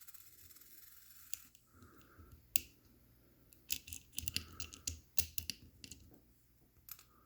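Small metal and plastic parts clicking, tapping and scraping as the robot is taken apart by hand, with a cluster of quick clicks in the middle.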